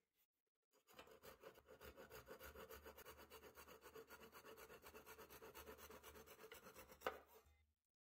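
Fine-toothed handsaw cutting a 3/8 inch wooden dowel flush with the end of a larger dowel: faint, quick, even back-and-forth strokes, about six a second, with one sharp click near the end before the strokes stop.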